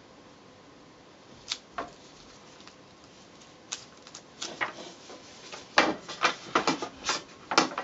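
Sharp clicks and light knocks of composite pole sections and tape being handled on a wooden workbench: a few scattered clicks at first, then several in quick succession over the last two seconds.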